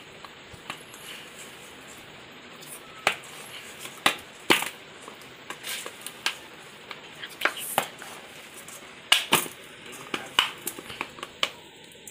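Soft, sticky dough being kneaded by hand in a stainless steel bowl, with a dozen or so sharp clicks and taps against the metal bowl at irregular intervals, several close together in the second half.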